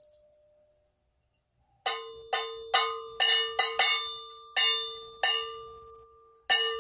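A bronze chime bell from a bianzhong set, struck about nine times in an uneven rhythm starting about two seconds in; each strike rings on at the same clear pitch with bright overtones.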